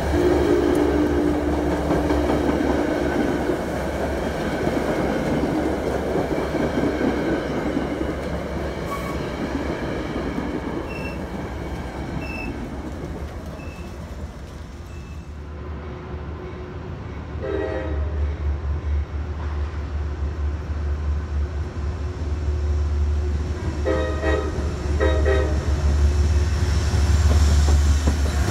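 Metro-North passenger coaches rolling past and fading away as the train pulls out. Then a diesel locomotive's deep engine rumble builds as it comes alongside, with a brief horn sound partway through and a few short horn blasts near the end.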